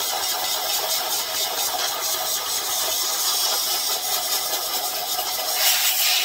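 Compressed air hissing steadily from an air hose, blowing carbon out of a stopped-up Stihl TS 350 Super concrete-saw muffler, with a small engine running steadily underneath.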